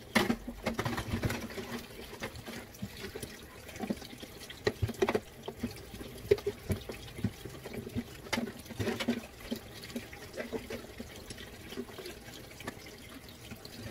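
Washing up by hand at a kitchen sink: water splashing and running, with irregular knocks and clinks of dishes against each other and the sink.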